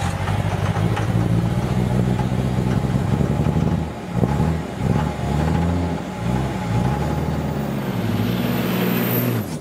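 A vehicle engine running and being revved, its pitch rising and falling several times in the middle, then cutting off suddenly.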